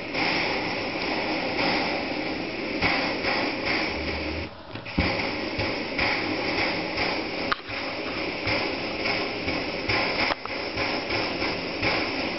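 Homemade pressurized petrol stove with a Shmel-2 burner bell, burning with a steady hiss. The hiss falters briefly about four seconds in, with a couple of sharp clicks, as the flame flares up yellow before settling back.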